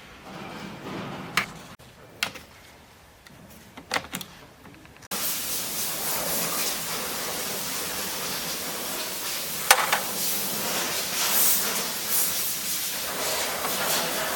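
A few light clicks and knocks, then, after an abrupt jump about five seconds in, a steady loud hiss with a sharp click near the ten-second mark.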